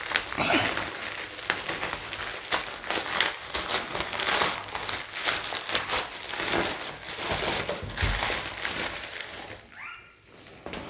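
White plastic courier mailer bag crinkling and rustling in irregular bursts as hands tear it open and pull it apart, dying down near the end.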